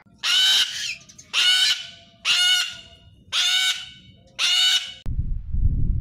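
Sulphur-crested cockatoo screeching: five harsh, half-second screeches about a second apart. Near the end they stop abruptly and a low rumbling noise follows.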